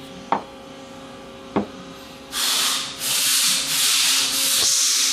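Two light knocks, then a series of rough rubbing strokes: a greasy glove being wiped clean.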